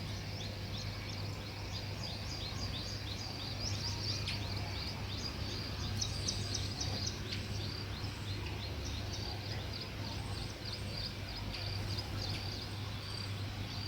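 A group of small birds chirping rapidly and continuously, short high chirps many times a second, over a steady low hum.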